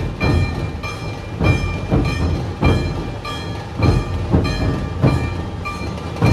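A troupe of large Maharashtrian dhol drums beaten with sticks in unison, heavy beats roughly once a second with lighter strokes between. A short high ringing tone pulses along with the rhythm.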